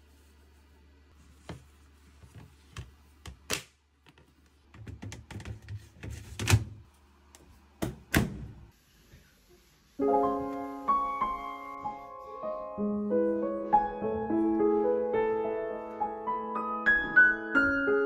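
Scattered sharp clicks and knocks of a Bosch heat pump dryer's plastic lint filter being handled and wiped, over a low hum that stops a little before the halfway point. About halfway through, piano music starts and carries on.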